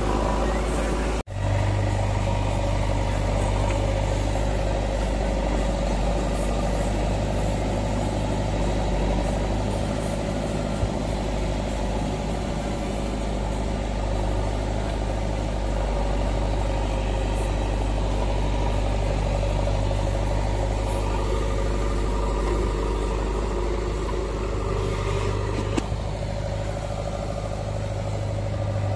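Diesel engines of a JCB 3DX backhoe loader and a Massey Ferguson 1035 tractor running steadily at low revs, with a deep hum. The sound cuts out for an instant about a second in.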